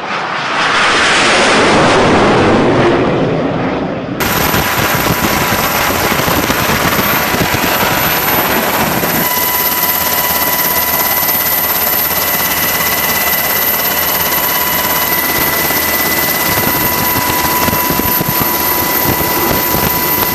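Northrop Grumman X-47B's turbofan jet engine in a low pass: a loud rush that swells and fades over the first four seconds. After a sudden cut, a steady jet drone with thin, high, even whine tones as the aircraft flies on at a distance.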